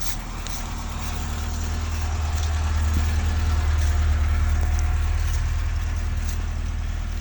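A motor vehicle passing on a wet road. Its low engine rumble and tyre noise swell to a peak in the middle and then fade away.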